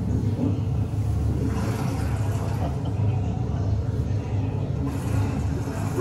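Steady low rumble, with faint voices in the background.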